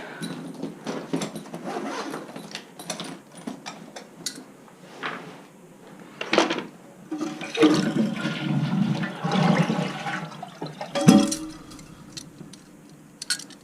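A toilet flushing, water rushing out of the tank into the bowl for a few seconds past the middle, with clicks and knocks of hands at the toilet before it and a sharp knock just after.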